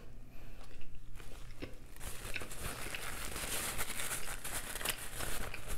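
Close-miked chewing of a mouthful of shrimp and cheese pizza: scattered small clicks at first, then a dense, steady crackle from about two seconds in.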